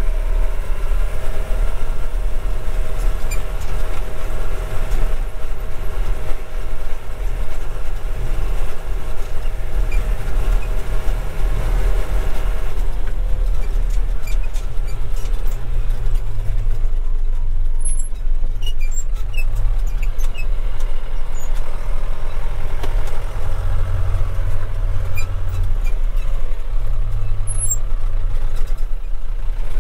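John Deere 6200's 3.9 L four-cylinder turbodiesel heard from inside the cab, running at speed with a steady whine over the engine note; about thirteen seconds in the whine stops and the engine drops to a low, deep running sound, with a few short clicks near the end.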